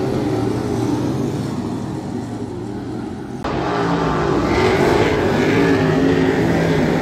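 Dirt-track super stock race car engine running hard as the car laps the oval, its pitch swaying with the throttle. About halfway through the sound cuts abruptly to a louder, brighter engine note.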